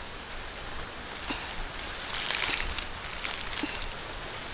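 Light rustling of dry leaf litter and small handling noises as a crouching person shifts and handles fruit, a little busier about two seconds in, over a steady outdoor hiss.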